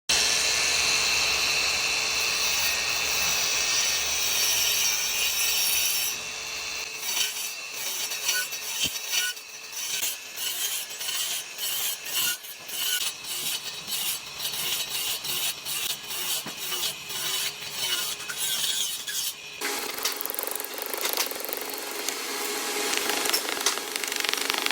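A tool cutting or scraping wood. A steady scraping runs for the first few seconds, then gives way to a long run of quick, repeated sawing or rasping strokes. Near the end it changes again to a steadier grinding sound.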